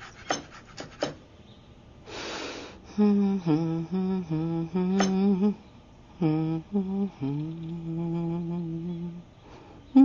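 A kitchen knife chopping herbs on a wooden cutting board, a few quick chops, followed by a short rustle. Then a woman hums a slow tune in stepping notes, ending on a long held note.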